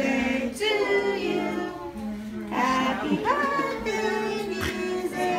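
Children and women singing together, with held notes that rise and fall.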